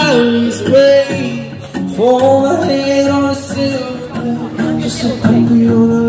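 A street busker's amplified voice singing long held notes over backing music.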